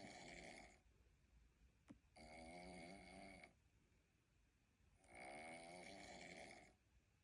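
Domestic cat snoring quietly in its sleep, one snore about every three seconds, each lasting about a second and a half with a fluttering tone. A small click comes just before a snore about two seconds in and again near the end.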